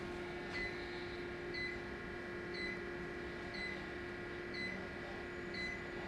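Medical laser unit beeping once about every second while its handpiece fires on the soft palate, with a steady hum underneath.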